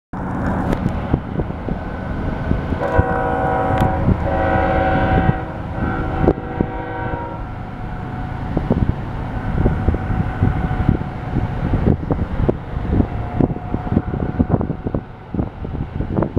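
BNSF diesel locomotives' horn sounding a several-note chord in two long blasts, about three seconds in, over the steady low rumble of the moving intermodal train.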